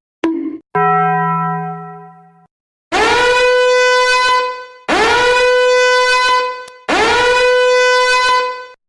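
Three long, identical horn blasts, each about two seconds, each swooping up in pitch at the start and then holding one note. They follow a short click and a ringing tone that fades away over about two seconds.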